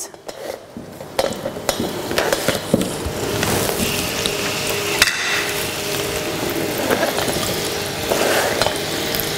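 Cut potatoes and onion dropping into hot oil in a stainless steel saucepan, a few knocks as they land, then sizzling that builds over the first few seconds and holds steady as they start to fry. One sharp knock about five seconds in.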